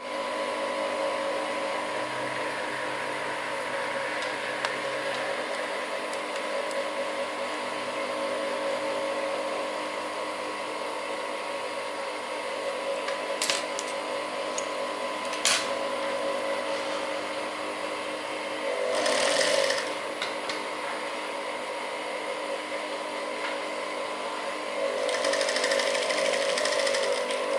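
Industrial sewing machine stitching elastic onto cotton fabric: a steady motor hum, two sharp clicks around the middle, and louder runs of stitching about two-thirds of the way through and again near the end.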